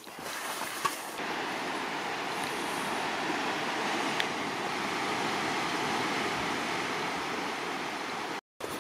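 Ocean surf washing and breaking around shoreline rocks, a steady rushing noise that cuts out abruptly for a moment near the end.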